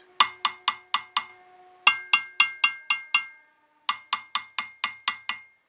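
Light hammer taps on the webs of a BSA A65 crankshaft, in three quick runs of about four taps a second. Each tap gives a short, sharp ringing note rather than a dull one, the sign of a crank with no crack, which the owner takes to be okay.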